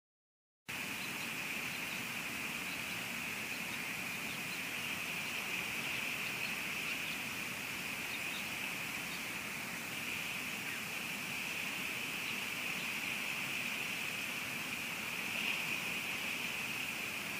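Steady outdoor hiss picked up by a nest camera's microphone in the rain, with a strong high-pitched band and a few faint ticks; it cuts in suddenly about a second in and then holds even.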